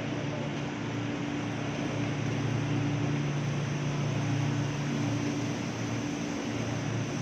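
Steady hum and rumble of a KRL electric commuter train, a low drone over even running noise.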